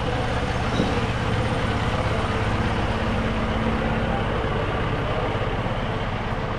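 A motor vehicle's engine running close by over steady street noise, its low hum weakening after the first second or so.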